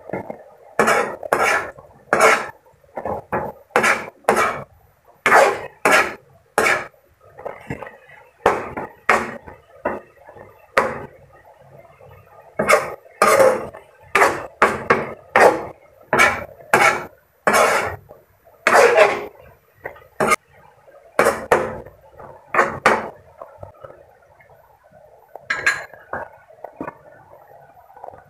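A cooking utensil scraping and knocking against a frying pan while stir-frying cabbage and vegetables, in quick irregular strokes about one or two a second, which stop for the last few seconds.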